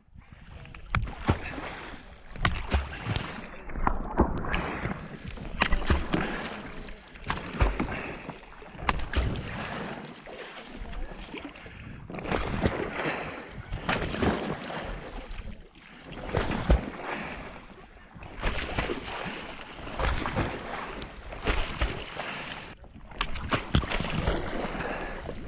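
Sea kayak being paddled with a Lendal paddle: the blades dip and splash into the water in a steady rhythm, a stroke about every second and a half, with water rushing along the hull between strokes.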